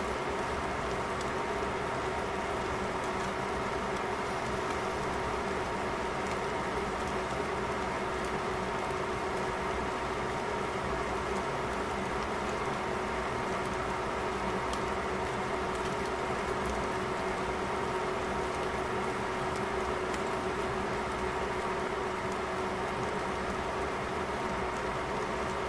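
Pot of vegetables simmering under a glass lid, with faint bubbling and light ticking over a steady fan-like hum that carries a fixed whine.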